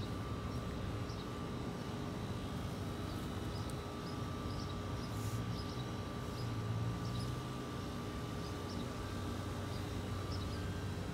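Steady outdoor background noise: a constant hum and a low rumble that swells for a couple of seconds midway, with faint, scattered short high chirps.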